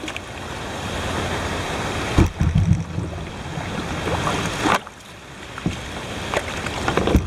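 Water splashing and rushing around a kayak as it is paddled, with wind buffeting the microphone about two seconds in and a single knock near the end.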